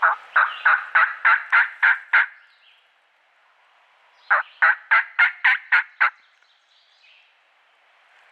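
Turkey call run by a hunter to strike a gobbler: two loud series of sharp yelps, about four a second, the first of about eight notes and the second of about seven, starting about four seconds in.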